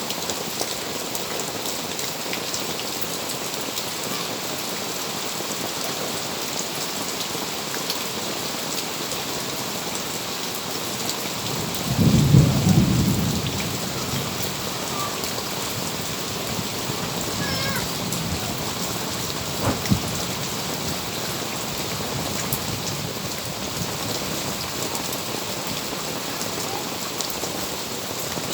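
Steady heavy rain falling, with a low rumble of thunder about twelve seconds in.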